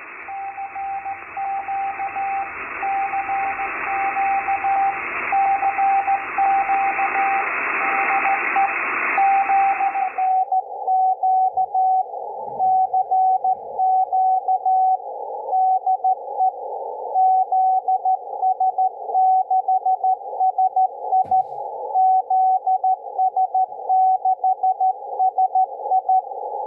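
Morse code (CW) on the 40 m band heard through a ham radio's speaker: a single keyed tone sending dots and dashes over band hiss. About ten seconds in, the wide hiss gives way to a narrower hiss around the tone.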